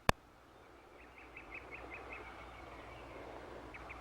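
A single sharp click at the very start, then a rapid series of short bird chirps, about five a second, over low background noise.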